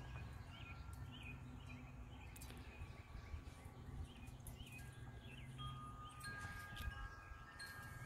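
Faint wind chimes ringing, their long tones overlapping as they fade, with a few fresh notes struck past the middle. Small birds chirp softly now and then.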